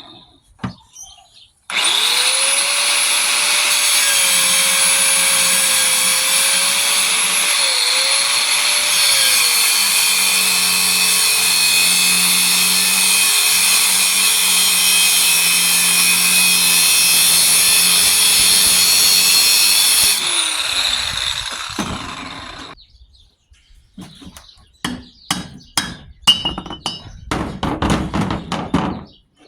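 A power tool cutting into the steel shell of a scroll compressor, with a steady whine that sags slightly lower partway through as it bites, running for about eighteen seconds before winding down. After it stops comes a run of sharp metallic clanks and knocks.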